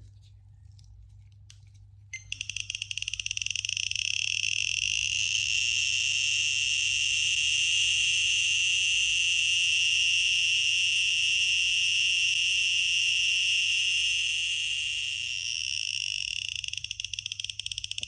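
Raysid radiation detector clicking at a very high count rate over a uraninite specimen, its clicks so fast that they blur into a continuous high buzz. It starts about two seconds in, swells louder through the middle, and stops near the end. The sound is the sign of strong radioactivity from the uraninite.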